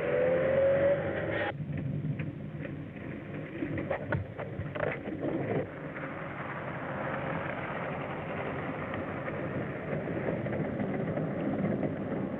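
Vintage car engine revving, its pitch rising, cut off abruptly about a second and a half in. Then a few sharp knocks and a rough, steady rumble that slowly grows louder, as a car runs over rough ground.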